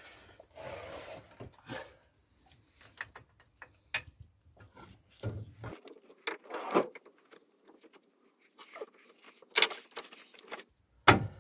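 Clinks, taps and knocks of a Rover 75 front brake caliper, its new pads in place, being handled and fitted back over the brake disc, with two sharper knocks towards the end.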